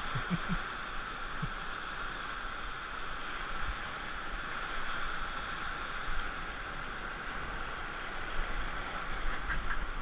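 Whitewater rapid rushing steadily, with water splashing over an inflatable raft held in the wave.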